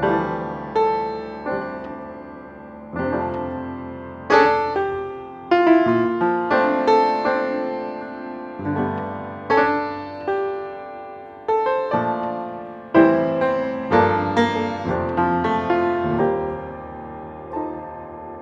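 Background piano music: unhurried notes and chords struck one after another, each left to ring and die away.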